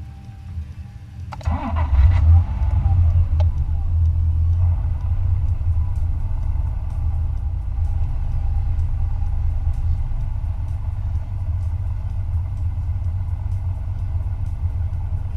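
Mid-engined 1991 NSX's 3.0-litre V6 cranking and catching about a second and a half in, flaring briefly, then settling into a steady idle, heard from inside the cabin.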